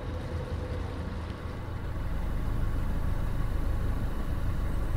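Narrowboat engine running steadily under way, a low rumble that gets louder about two seconds in.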